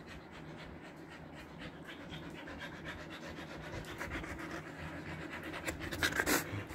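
Siberian husky panting rapidly, mouth open and tongue out. About six seconds in, a few louder scuffing noises come as a husky's tongue and muzzle press against the phone.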